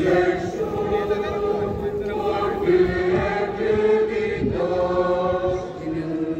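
Religious chant sung by many voices and relayed over loudspeakers, in long held notes.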